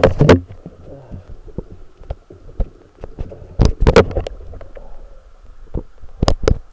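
Irregular knocks and bumps of a handheld camera in its waterproof housing being handled underwater, over a faint steady hum. The loudest knocks come at the start, in a cluster about halfway through, and twice near the end.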